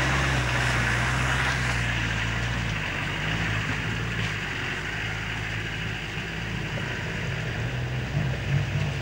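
Land Rover engine running at a low, steady pace while driving a rough off-road track, with a steady hiss over it; the engine note shifts about three seconds in.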